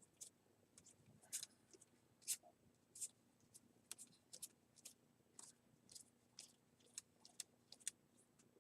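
Trading cards being flipped and slid off a stack by hand: faint, short card-stock swishes and flicks, about two or three a second at an uneven pace.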